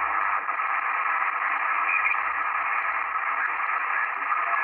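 Sony ICF-2001D shortwave receiver tuned in lower sideband and swept across the 40-metre band between stations: a steady, thin band hiss from its speaker, with no voices coming through.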